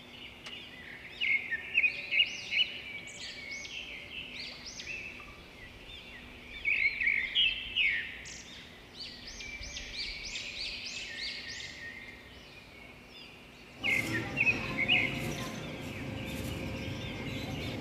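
Birds chirping and calling outdoors in quick runs of short, high notes. About fourteen seconds in, a steady outdoor rushing noise comes in under the calls.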